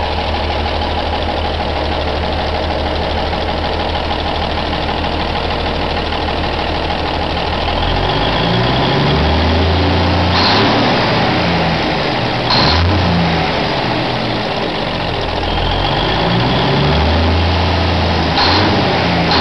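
Cummins 350 inline-six diesel truck engine idling steadily, then revved by hand at the injection pump throttle lever several times, its speed rising and falling again, with three short sharp clacks among the revs. The engine is being tested after repair work and a new exhaust.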